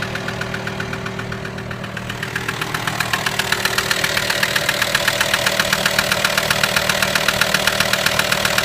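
VW T5's 2.5 TDI five-cylinder diesel (AXD) idling with a rapid, even knocking, several knocks a second, that grows louder and sharper about two to three seconds in. It is the unexplained engine noise whose cause has not yet been found.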